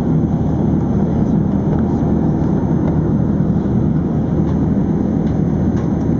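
Cabin noise inside an Airbus A380 airliner in flight: a steady low rumble of airflow and engines.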